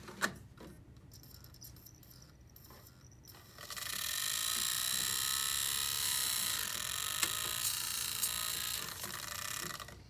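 A click near the start. Then, about three and a half seconds in, a Blu-ray drive spins a disc held up by zip ties, making a steady, high scraping hiss for about six seconds before it stops. The owner fears this horrible sound is the disc grinding down onto the top of the laser.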